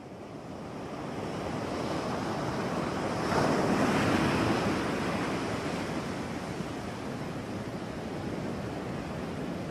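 Sea surf washing on a rocky shore, rising over the first couple of seconds, with a wave swelling loudest about three and a half seconds in.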